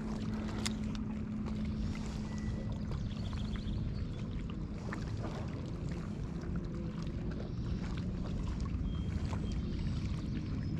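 Steady low rumble and hum from the boat on the water, with a steady low tone through the first few seconds and faint scattered light ticks.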